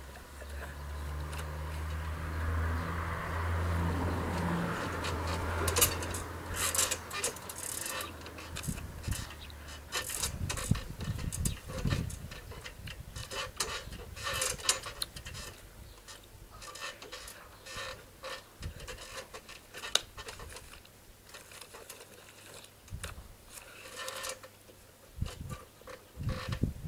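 A low engine hum that fades out about ten seconds in, then scattered soft taps and rustles of hands against clothing.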